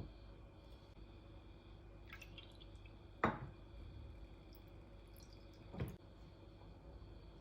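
A few separate small clicks or knocks over a faint steady hum, the loudest about three seconds in and another near six seconds.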